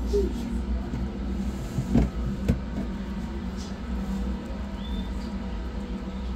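A cat eating wet food from a plastic bowl: faint clicks of chewing and two sharp knocks about two seconds in, over a steady low hum.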